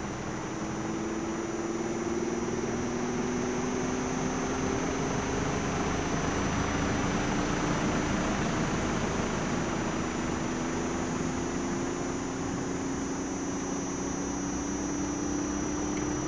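Inverter air-conditioner outdoor unit running, its compressor hum climbing slowly in pitch as the inverter ramps it up. Partway through it drops back a step, then climbs again. Under it runs a steady rush, with a thin high whine above.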